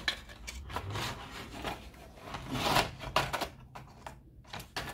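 Plastic packaging of model railroad snap-switch turnouts being handled, with irregular crinkling, rustling and small clicks.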